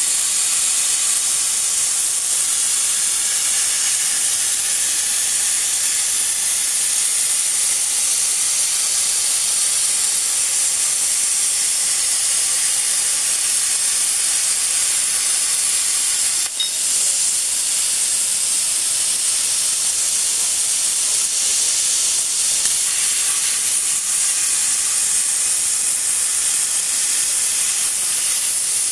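Plasma torch of a portable CNC plasma cutting machine cutting through sheet metal: a loud, steady high hiss of the arc and its gas jet, with one brief dip a little past halfway.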